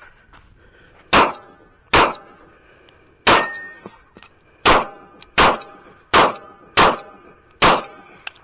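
Kimber Custom II 1911 pistol firing eight .45 ACP shots, spaced unevenly over about seven seconds, some less than a second apart.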